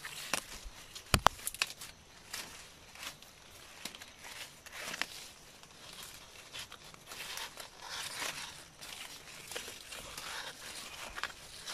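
Arenga palm leaflets rustling and crackling as they are handled and woven into a mat, with a few sharp clicks about a second in.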